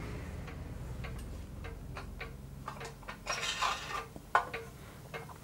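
Light metal clicks and clinks as the small parts of a model steam engine are handled, a few scattered at first and then a cluster with some rustling about three to four seconds in.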